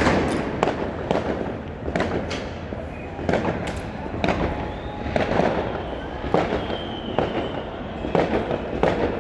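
Fireworks and firecrackers going off in quick succession: a string of sharp bangs at irregular intervals, roughly one or two a second, over a continuous background din.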